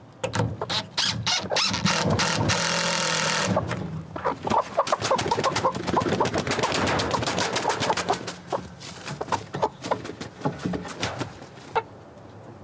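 Domestic hens clucking in a wooden coop, with many sharp knocks and a loud rushing burst about two seconds in.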